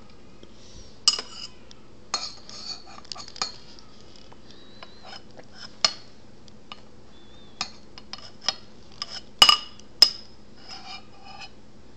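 A spoon clinking and scraping against a bowl as a toddler feeds herself: a string of irregular sharp taps with short rings, two of the hardest near the end.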